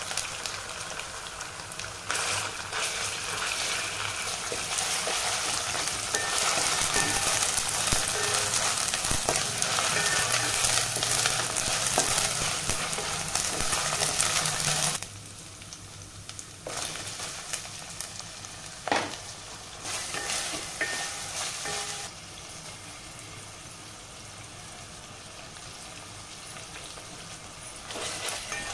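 Chopped onions, green chillies and curry leaves frying in oil in a stainless steel pot, sizzling as a wooden spatula stirs them. The sizzle is loud for the first half, then drops sharply about halfway through to a quieter fry, with a single knock of the spatula a few seconds later.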